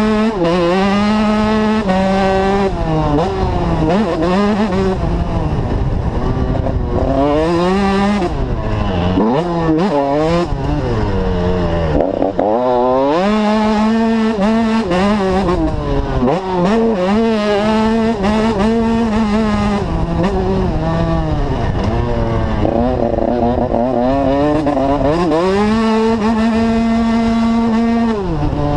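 A motocross bike's engine heard close up from on board, revving up and dropping back over and over as the rider accelerates and backs off around the track, with a few steadier stretches held at speed.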